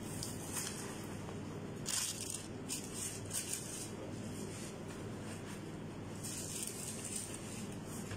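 Soft rustling and crinkling of gloved hands handling flatbread and wrapping paper while rolling sandwich wraps, in several short bursts, over a steady low hum.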